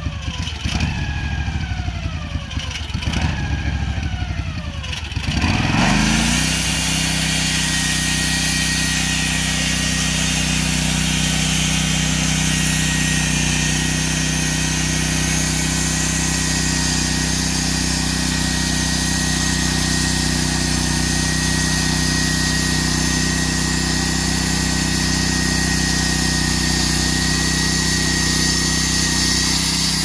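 Norwood portable band sawmill at work. For the first few seconds its engine runs at a lower speed with a repeated falling whine. About six seconds in it speeds up to a steady high speed as the band blade cuts lengthwise through a log, with a faint steady high whine over the engine.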